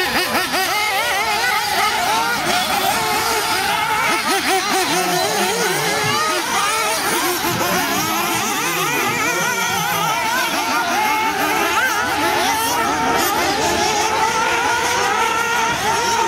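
Several 1/8-scale nitro off-road RC buggies racing together, their small glow engines revving up and down in many overlapping, constantly wavering pitches.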